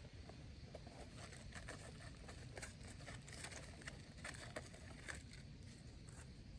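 Popcorn kernels popping inside an antique metal bed warmer pan held over a campfire: a scatter of faint pops that thickens about two seconds in and thins out near the end.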